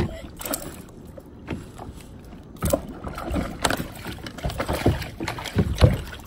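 Irregular knocks, rustles and thumps on a kayak as an angler handles a freshly caught redfish, with the loudest thumps near the end.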